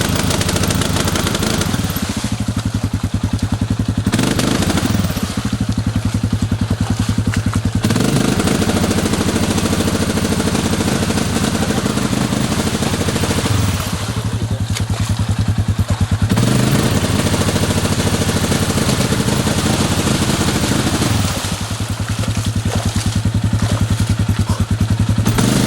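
ATV engine running close by, its revs rising and falling several times as the throttle is worked.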